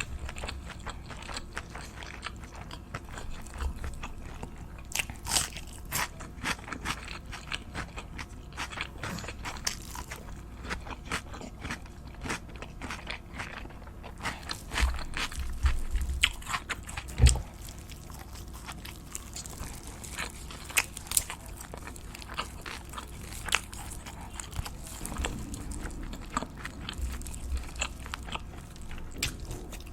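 Close-miked eating: crunchy bites and chewing, with many short sharp crunches throughout and the loudest about seventeen seconds in.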